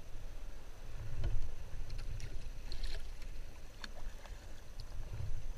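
Water lapping and dripping around a sea kayak, with scattered small splashes and clicks over a steady low rumble.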